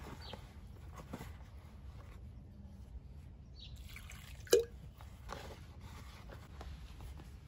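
Hands mixing flour and water in a plastic bowl to start bread dough, with water poured in from a glass jug about halfway through. One sharp clack, the loudest sound, follows just after the pour.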